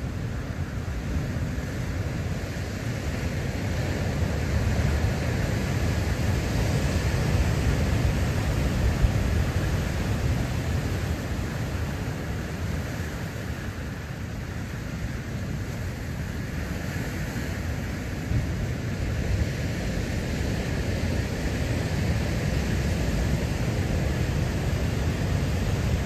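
Heavy ocean surf breaking on a rocky lava shore: a steady low wash of waves that swells louder twice, several seconds in and again toward the end, as sets come through.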